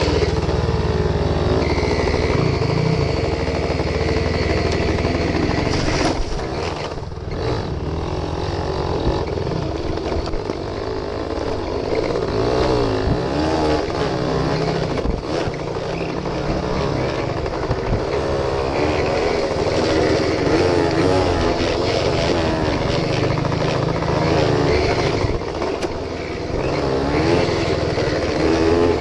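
Suzuki RV75's small two-stroke single-cylinder engine running as the bike is ridden along a dirt trail, its pitch rising and falling as the throttle is opened and eased off, with a couple of short drops in revs.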